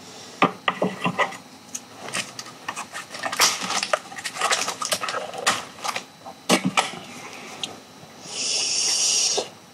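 Crinkling and rustling of a thin plastic wrapper being handled and torn open, with light clicks and taps of wooden chopsticks, then a steady hiss lasting about a second near the end.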